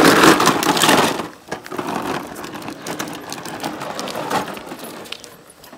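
A child's plastic ride-on toy tractor rattling as its hard wheels roll over rough concrete. It is loudest for about the first second, then settles to a lighter rattle as it rolls away.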